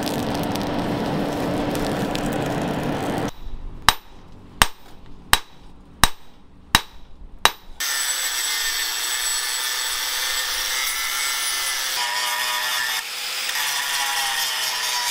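A charcoal forge fire rushing with a steady low hum, then six sharp ringing strikes on metal about two-thirds of a second apart, then an angle grinder whining steadily as it grinds the edge of a steel motorcycle sprocket, its pitch shifting slightly under load.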